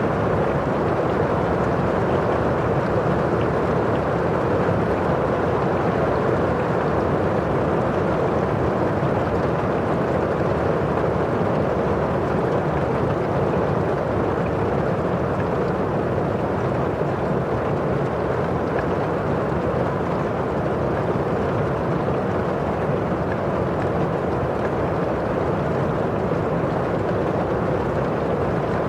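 Steady rain on window glass and falling outside, an even, constant rush with no sudden sounds.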